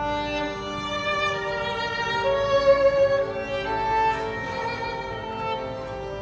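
Instrumental music: a melody of long held notes over accompaniment, swelling a little before the middle.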